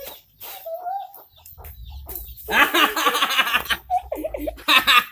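Chickens clucking and cackling, loudest in a burst about halfway through and a short one near the end.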